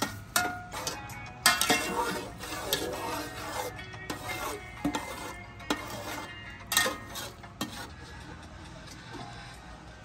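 A long slotted metal spoon stirs sugar syrup in an aluminium pot on the stove, scraping and clinking against the pot's sides and bottom again and again. The stirring thins out in the last couple of seconds.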